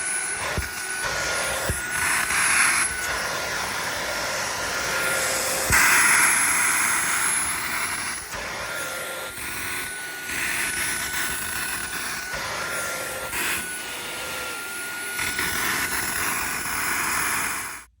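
Dreo cordless stick vacuum running with a steady motor whine and rush of air, its pitch wavering slightly and the air noise swelling at moments as the multi-purpose brush is worked over sofa upholstery. It cuts off abruptly at the very end as it is switched off.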